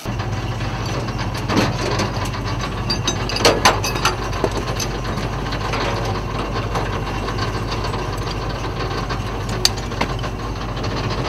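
A fire engine's motor running steadily, with scattered metallic clicks and clanks from hoses and couplings being pulled out and handled.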